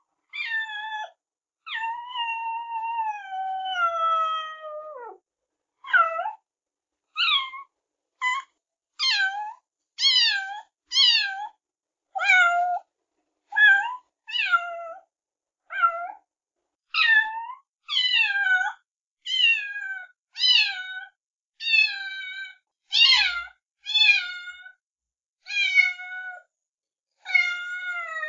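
A cat meowing over and over, about one meow a second, each call dropping in pitch. About two seconds in comes one long drawn-out meow that slides down over about three seconds.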